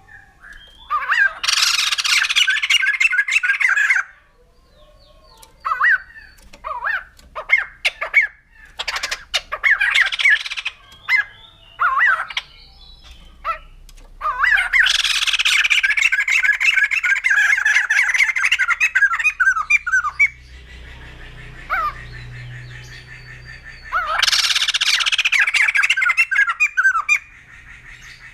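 White-crested laughingthrush calling in three loud bursts of rapid, jumbled calls, the longest about six seconds. Scattered short single calls come between the bursts.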